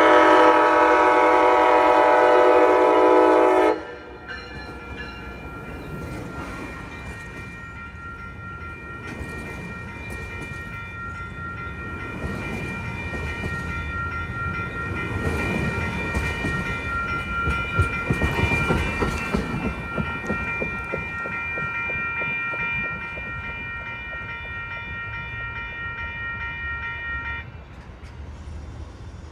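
Amtrak passenger locomotive's horn sounding one long, loud blast that cuts off about four seconds in. The bilevel passenger train then rolls past with its wheels clattering over the rails, loudest in the middle. Meanwhile the crossing signal's bell rings steadily and stops shortly before the end.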